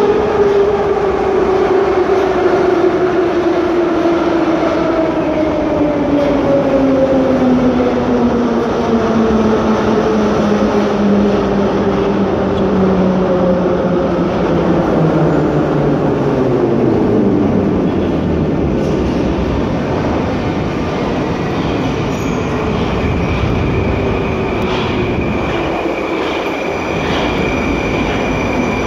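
Moscow metro train pulling into the station and braking, its electric traction drive whining in a pitch that falls steadily over about fifteen seconds as it slows. A steady high tone sets in over the last few seconds as it comes to a stop.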